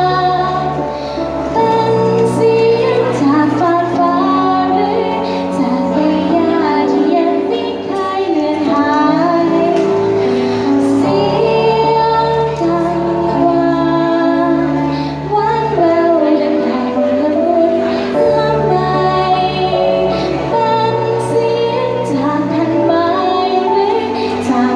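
A young female voice singing a melody over backing music with held bass notes.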